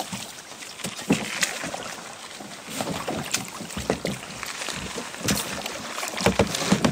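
A person climbing into a plastic sit-in kayak in shallow water: water sloshing and splashing around the legs and hull, with scattered knocks and clatters against the plastic hull.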